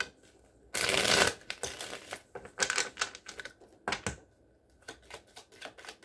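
Tarot cards being handled: a brief rush of shuffling about a second in, followed by light clicks and rustles.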